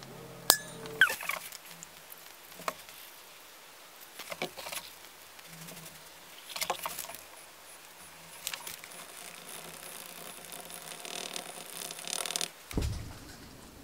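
Small handling noises while preparing epoxy: scattered clicks and taps of a caulk tube, plastic bottle and plastic cup. Near the end, a wooden stick scrapes around inside a plastic cup as black-pigmented epoxy is stirred, and then there is a single low thump.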